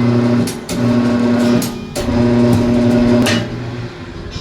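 Tire-changing machine's motor running in three short bursts, switched on and off, each a steady hum at the same pitch, with metal clanks between them as the tire is worked off the motorcycle rim.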